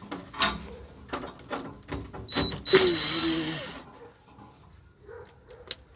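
Metal clanks, taps and a scrape from hand tools at work dismantling an air conditioner, with a short high ringing tone during the loudest scrape about halfway through.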